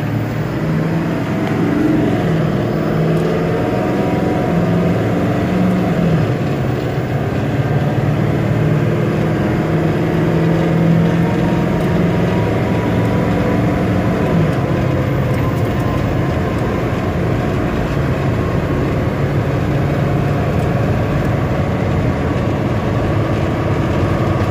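Diesel engine of a 2005 Chevrolet C4500 Kodiak utility truck pulling steadily, heard from inside the cab with road and tyre noise, as the truck accelerates from about 50 to 60 mph.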